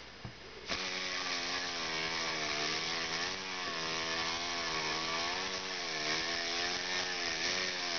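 Miniature brass model engine with a 1/8-inch bore and stroke and a 3/8-inch flywheel, running on canned compressed air. It starts abruptly about a second in, then runs very fast with a steady buzz over a hiss of escaping air, its pitch wavering slightly up and down.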